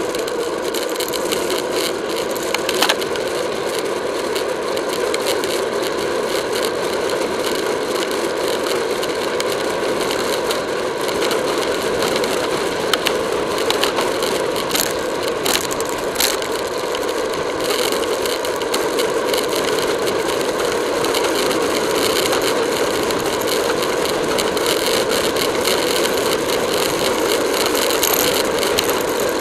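Road racing bicycle ridden fast on asphalt: steady wind and tyre noise with a constant rattle and scattered sharp clicks from the bike and the camera on it.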